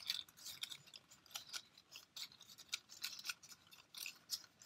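Red cardstock petals of a paper flower crinkling and rustling as fingers press and adjust the glued layers, a faint, irregular run of small crackles.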